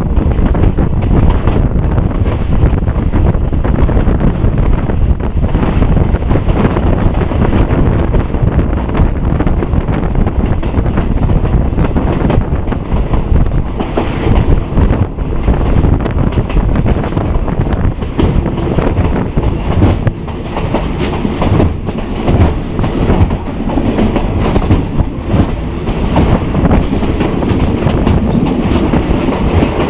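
Passenger train running at speed, heard through an open carriage window: a steady rumble of wheels on the track with a continual clickety-clack over the rail joints.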